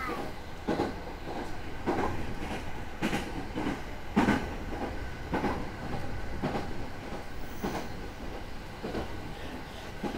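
A JR East 209 series electric commuter train running at speed, heard from inside the car. There is a steady rumble of wheels on the rail, with a sharp clack from the rail joints roughly once a second; the loudest comes about four seconds in.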